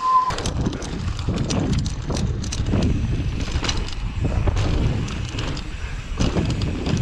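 Full-suspension mountain bike ridden over small dirt doubles: knobby tyres rolling over packed dirt and dry leaves, wind rumbling on the microphone, and the bike rattling and knocking through the take-offs and landings. A short steady beep sounds right at the start.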